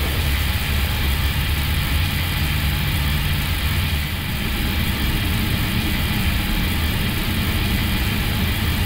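Airbus A321neo flight-deck noise: a steady low hum and rumble of the running jet engines and aircraft systems. About four seconds in, one low tone drops out and the hum changes slightly.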